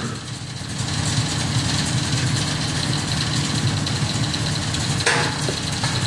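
Portable sawmill's engine idling steadily, with a couple of sharp knocks about five seconds in.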